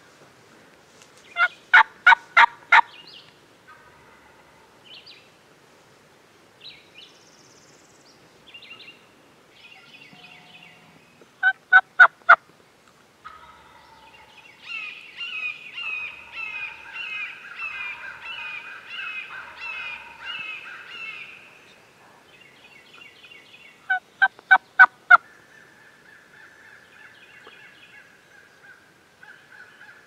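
Turkey yelping in short runs of about five evenly spaced notes, three times roughly ten seconds apart. Songbirds chirp more quietly in between.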